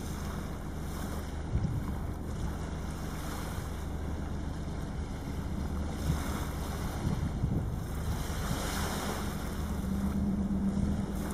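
Small waves washing on a sandy beach, with wind rumbling on the microphone. The wash swells twice, about six and about eight to nine seconds in, and a low steady hum comes in near the end.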